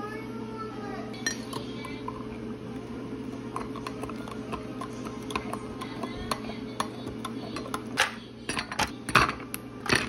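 A metal spoon stirs coffee in a glass mug, clinking lightly against the glass. Near the end, ice cubes drop into the mug with several louder clinks.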